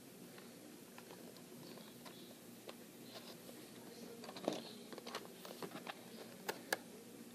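Clear plastic toy packaging handled and turned over in the hands: faint scattered taps and crinkles, with a sharper click about four and a half seconds in and two more near the end.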